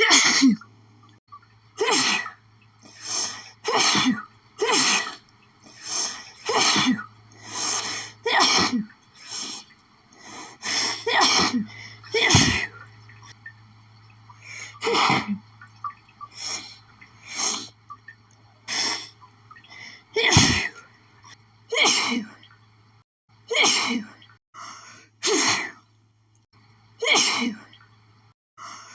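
A person sneezing again and again in a rapid fit, about two dozen sneezes at roughly one a second. It is an allergic sneezing fit, which the sneezer puts down to pollen from sniffing lilies.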